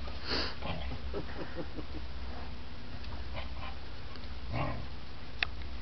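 Two dogs play-fighting, a large cream-coloured dog and a small black puppy, making short, scattered vocal sounds: a burst at the start, a quick run of brief sounds after it, and another burst later on. A sharp click comes near the end.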